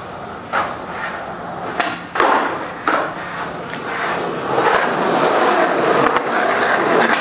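Skateboard wheels rolling over concrete, with four sharp knocks of the board in the first three seconds.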